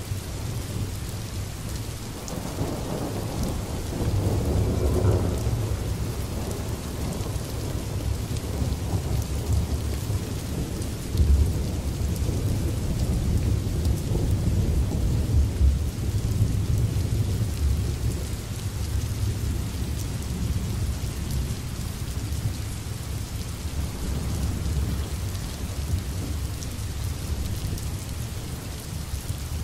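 Steady rain hissing, with low rolling rumbles of thunder: one swells a few seconds in, and heavier rumbles with a couple of sharp peaks come around the middle.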